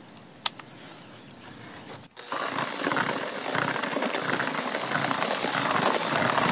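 Hands mixing groundbait that has just been moistened with water and activator, a dense gritty rustling of damp crumbs that starts about two seconds in. Before it there is a quieter stretch with a single click. This is the first wetting of the mix.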